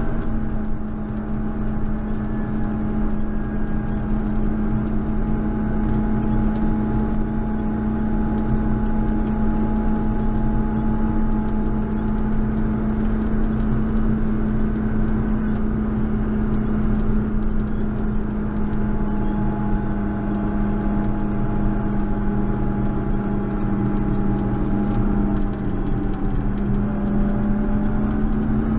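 JCB Fastrac 4220 tractor's diesel engine running steadily under load while plowing snow, a constant drone that dips briefly in pitch near the end.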